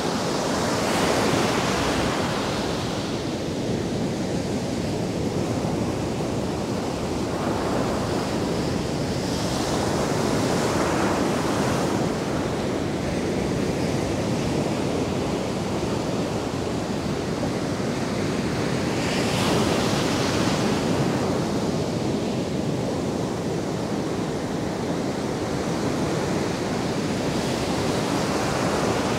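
Ocean surf breaking and washing up a sandy beach, a continuous rush that swells with a breaking wave about every nine seconds.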